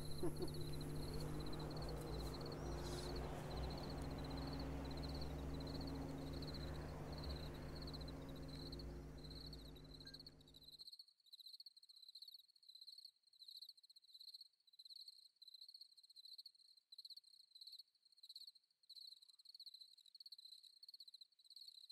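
Crickets chirping in a steady pulsing rhythm, about two chirps a second. Under them runs a low electrical hum that cuts off suddenly about eleven seconds in, leaving the crickets alone.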